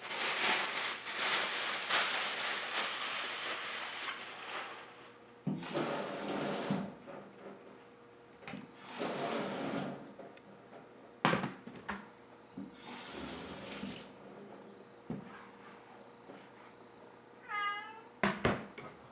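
Water from a kitchen tap runs in several bursts, the longest about five seconds at the start, with a few sharp knocks between them. Near the end a cat meows once, and the cutting board is knocked as it is picked up.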